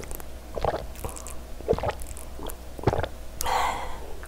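Water gulped from a glass: three swallows about a second apart, then a short breathy exhale after drinking.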